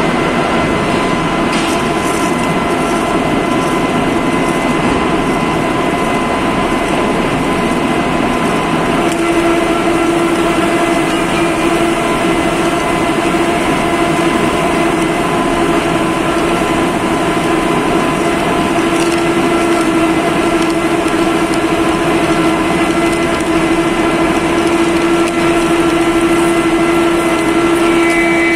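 D51Y-1000 ring rolling machine running as it rolls a ring: a loud, steady mechanical drone carrying several steady tones, with a stronger low hum setting in about a third of the way through.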